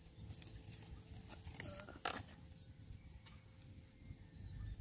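Faint, scattered small clicks and light taps of tools and small phone parts being handled, the loudest about two seconds in, over a low hum.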